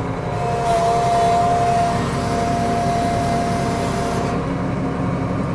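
Case IH 7120 Magnum tractor engine running steadily, with a steady whine and hiss from about half a second in to about four seconds as the hydraulics open the New Holland BR780 round baler's tailgate to eject the bale.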